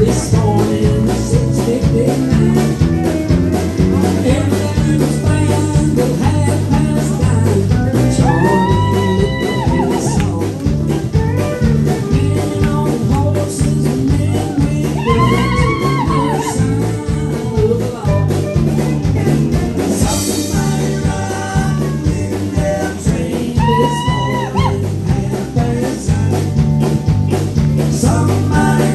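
Live band playing an upbeat song on electric guitars, keyboard, bass and drums, with a steady beat and a singer's voice coming in with a few phrases.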